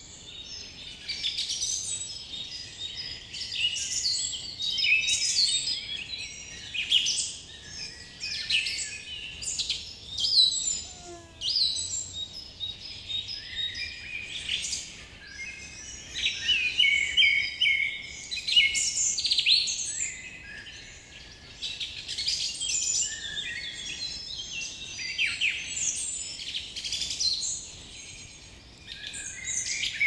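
Several songbirds singing and calling at once: a dense, overlapping chorus of high chirps and trills that swells and eases every few seconds.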